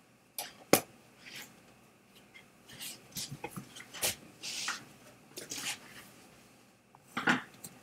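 Scattered light clicks and knocks at uneven intervals, about a dozen in all.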